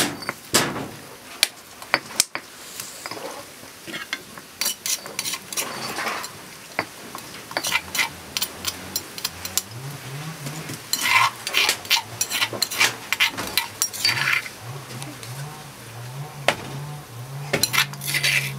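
Stone pestle knocking and grinding in a stone mortar, irregular sharp knocks, then a metal spoon scraping and clinking against the stone as a spice paste is scooped out, in quick clusters of scrapes near the middle and near the end.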